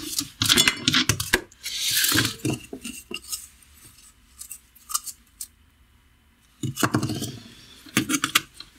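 Clinking and clattering of metal parts while the disc is changed on a bench-mounted angle grinder: the flange nut and abrasive discs are handled and set down on the workbench. The grinder is not running. A burst of clinks comes at the start, then a brief scrape, a quiet pause, and more clatter near the end.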